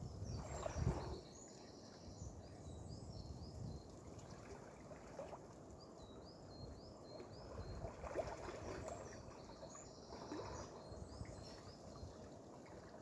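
Soft splashing of a swimmer lowering into and slowly breaststroking through cold lake water, loudest about a second in, with gentler swirls every few seconds. A small songbird sings short phrases of high chirps over it, repeated every few seconds.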